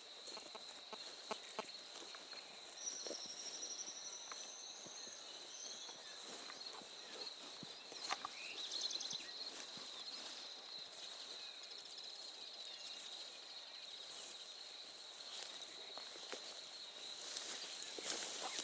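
Rural dawn birdsong: scattered short bird trills and calls, one a high trill lasting a few seconds, over a steady high-pitched insect drone, with faint clicks and rustles.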